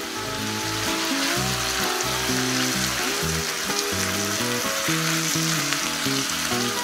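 Diced carrot, celery and onion sizzling in oil in a non-stick frying pan, with chopped tomato just added and stirred in with a spatula. Background music plays underneath.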